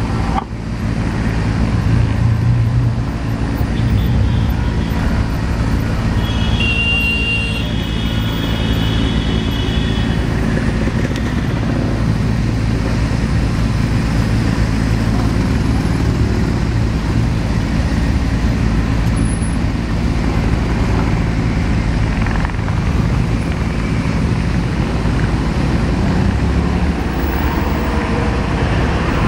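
Cessna 560 Citation twin-turbofan business jet landing and rolling out, heard from a distance as a steady low rumble. A brief high whine rises over it about seven seconds in.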